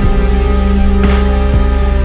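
Electronic music track: a sustained deep bass and held synth tones over a kick drum about twice a second, with a snare-like hit about a second in.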